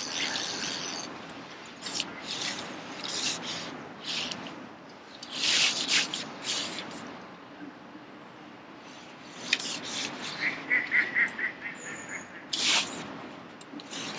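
Irregular rustling and rubbing from an angler's clothing and tackle while he plays a fish on a bent feeder rod and winds the reel. About ten seconds in there is a short run of about eight quick, evenly spaced notes.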